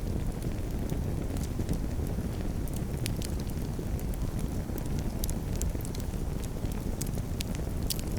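Campfire burning: a steady low rumble with many small sharp crackles and pops scattered through it.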